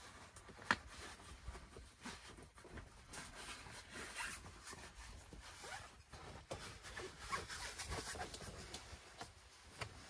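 Rustling and scraping of fabric and cord being handled, with scattered small clicks and one sharper click near the start.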